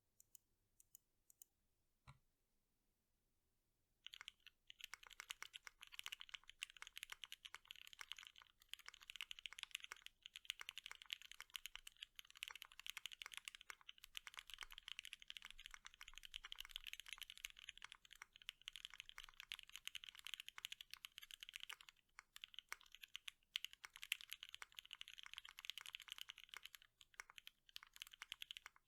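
Typing on an ATXKB Moontower V2 custom mechanical keyboard: O-ring mounted, with a POM plate and Gateron Ink V2 linear switches lubed with Krytox 205g0. A few single key presses come first, then fast continuous typing from about four seconds in, with a brief pause about three quarters of the way through.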